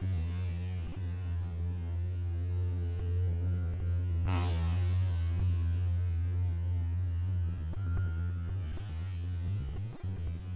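Steady low hum, with a brief rush of noise about four seconds in.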